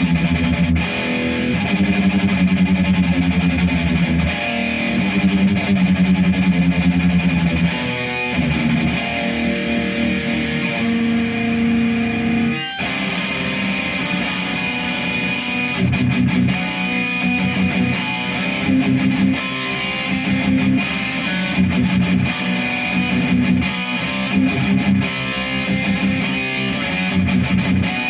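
Distorted electric guitar played through a Futile Art FX Chainsaw EQ pedal, an HM2-style EQ with a mid control, into a Marshall amp, with the distortion coming from the amp and no overdrive pedals. The guitar plays riffs and chords, with a brief break about thirteen seconds in.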